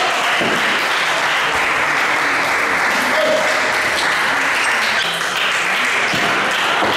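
Spectators applauding at the end of a table tennis point: steady clapping that starts sharply at the rally's end and lasts several seconds.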